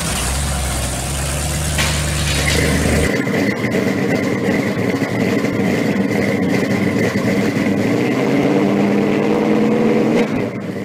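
Supercharged engine of a 1955 Chevy Nomad hot rod running as the car rolls by, cut off abruptly about three seconds in. It gives way to a different, steadier engine sound with a high whine that runs until the sound stops at the end.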